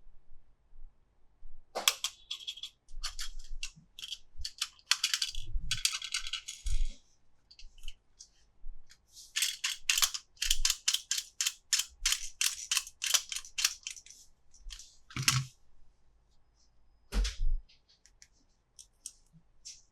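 Plastic toy and packaging handled up close: two long runs of rapid, sharp clicking and crinkling, with a few soft thumps as pieces are set down.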